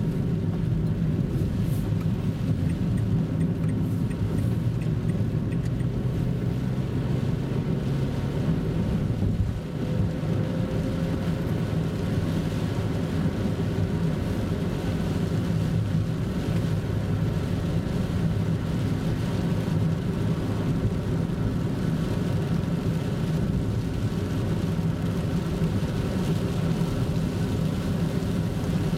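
Car engine and tyre noise on a wet road, heard from inside the cabin: a steady low hum with a brief dip about ten seconds in.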